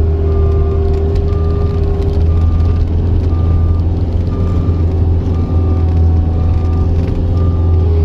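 Cat 279C compact track loader's diesel engine running steadily under work while its backup alarm beeps about once a second, sounding as the machine reverses.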